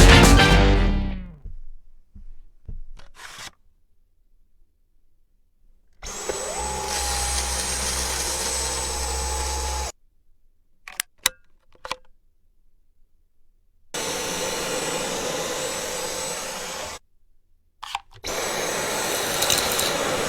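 Cordless stick vacuum motor running in three separate bursts of a few seconds each, its whine rising as it spins up at the first start. Clicks come between the bursts.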